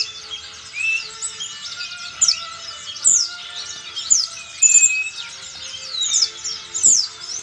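Sogon songbird singing a fast, continuous song of high chirps and whistles, packed with mimicked pleci (white-eye) phrases, with loud downward-sweeping notes about once a second.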